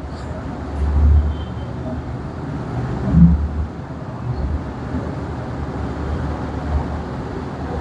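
Steady low rumble of background noise, swelling about a second in and again about three seconds in, with faint short squeaks of a marker writing on a whiteboard.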